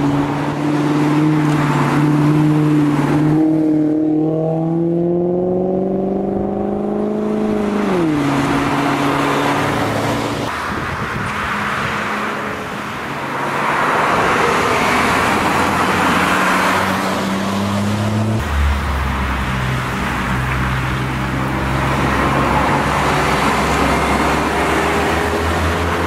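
Two Maserati cars pass one after the other. First a GranTurismo's engine note climbs for several seconds and then drops sharply about eight seconds in. Then a 1990s Quattroporte comes on with a lower engine note that grows into a deep rumble as it passes close near the end.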